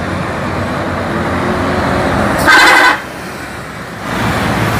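Mercedes-Benz tour bus engine running as the bus drives past, with one short, loud horn blast about two and a half seconds in.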